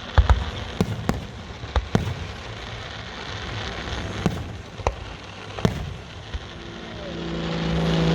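Fireworks going off: a string of sharp bangs, several close together in the first two seconds and more spaced out over the next few. Near the end a steady propeller-aircraft engine drone swells in and grows louder as it approaches.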